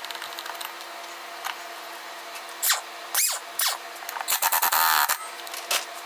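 Metal and plastic engine parts knocking and scraping together as the plastic fan assembly and cup are fitted by hand onto a small engine's flywheel. There are a few separate knocks and scrapes, then a longer rattling scrape from about four to five seconds in.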